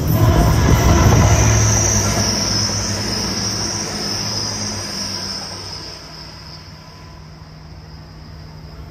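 Train running past on the main line, loud at first and dying away over about six seconds, with a high steady squeal from the wheels on the rails that swells and fades with it.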